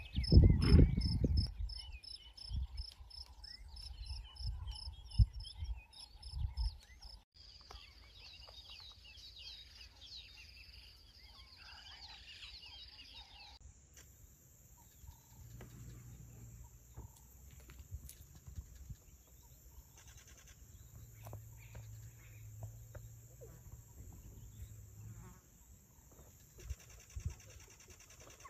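A male lion's roar dying away in its last low grunts in the first second or two, then savanna insects: a regular high chirping about three times a second, and later a steady high buzz.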